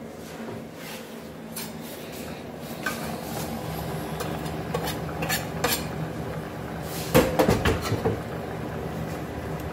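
A spoon stirring a pot of stew and clinking against the pot, with scattered knocks and a louder flurry of clatter about seven seconds in. A steady low hum runs underneath.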